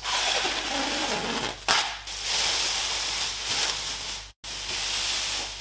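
Taped plastic masking film being pulled off its roll and spread out, in several long tearing, crinkling pulls of the tape and sheeting. The sound cuts out for an instant near the end.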